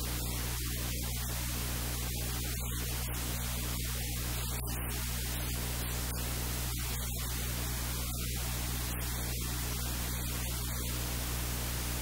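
Steady low electrical hum under an even hiss, with no other sound standing out.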